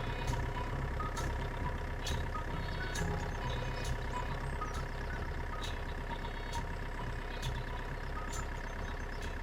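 Steady mechanical engine-like hum of a small vehicle running, with a sharp tick about once a second.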